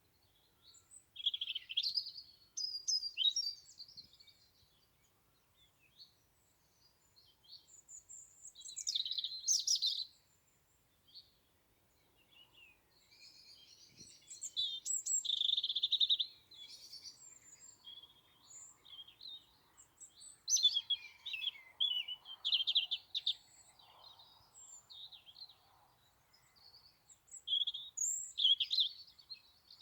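European robin singing: about five phrases of high, quick, warbling notes, each two to three seconds long, with pauses of a few seconds between them. Other birds call faintly in the gaps.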